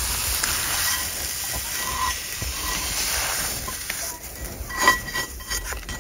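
A metal utensil scraping scrambled eggs out of a frying pan onto a paper plate, with one sharp clink against the pan near five seconds in, over a steady hiss.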